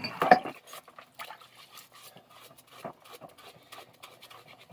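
Small metal vise parts clattering and clinking as they are handled, with a louder clatter in the first half second, then light scattered clinks and knocks.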